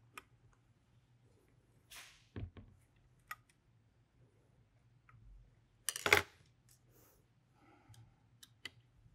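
Small metallic clicks and taps from a T-handle hex key and other hand tools working screws on an air rifle's chassis as they are tightened down. There is one much louder clack about six seconds in.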